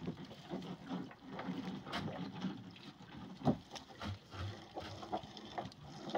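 Wet gill net being hauled hand over hand into a small boat: the mesh swishes and drips, with scattered small knocks and one louder thump about three and a half seconds in.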